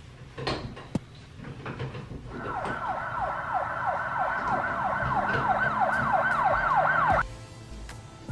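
Electronic siren sounding a fast yelp: falling whoops repeated about four times a second over a steady high tone. It starts a couple of seconds in and cuts off suddenly near the end, after a few light knocks early on.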